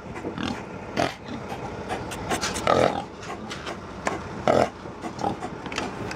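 Pigs crowded in a livestock transport trailer panting hard, with short louder grunts about one, three and four and a half seconds in. The hard panting is a sign of heat stress.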